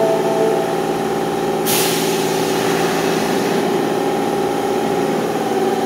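Osaka Metro Sakaisuji Line subway train at the platform, running with a steady hum. Under it, a long hiss of released compressed air sets in suddenly about two seconds in and keeps going.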